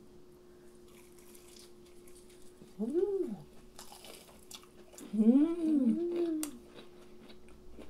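Closed-mouth "mmm" hums of enjoyment through a full mouth while eating: one hum rising and falling in pitch about three seconds in, then three in a row from about five seconds, over soft chewing clicks and a faint steady hum.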